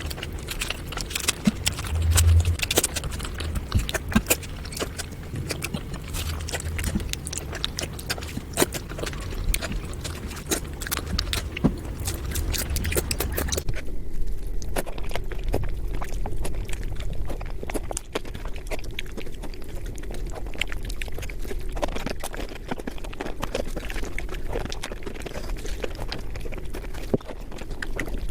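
Eating noises from a plate of panta bhat: a dense, rapid run of small clicks, smacks and chewing sounds, over a low hum that stops about halfway through.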